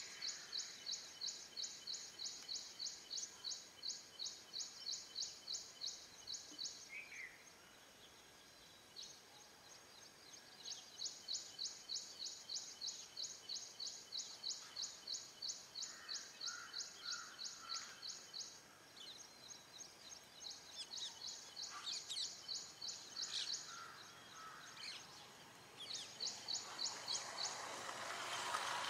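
Rhythmic high-pitched chirping from an unseen animal, about three or four chirps a second in long runs separated by short pauses, with a few faint lower notes in between.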